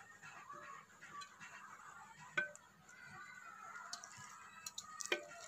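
Raw mutton pieces being laid into a clay cooking pot (handi), with two sharp clinks as meat and bone knock against the clay, about two and a half seconds in and near the end.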